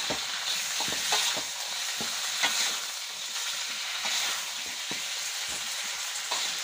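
Whole fish sizzling in hot oil in an aluminium wok, with a spatula scraping and knocking against the pan now and then as the fish are turned.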